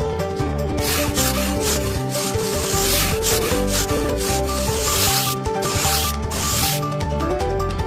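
Rasping, scraping rubbing on a hard surface, likely on the miniature brick-and-cement build: one long stretch, then two short strokes near the end. Background music plays underneath.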